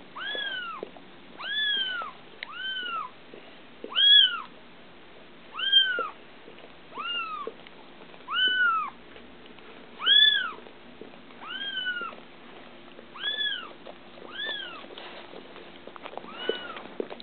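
Neonatal kittens mewing: about a dozen high-pitched cries, each rising then falling in pitch, coming roughly one every second and a half.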